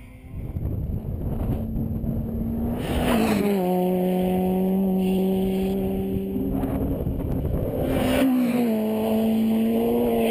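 A steady engine hum from a vehicle out of sight, its pitch dropping a little about three seconds in and shifting again near the end, under a heavy low rumble of wind buffeting the microphone.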